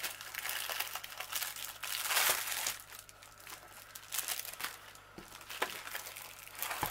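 Thin clear plastic sleeve crinkling and rustling as a rolled canvas is slid out of it, loudest about two seconds in.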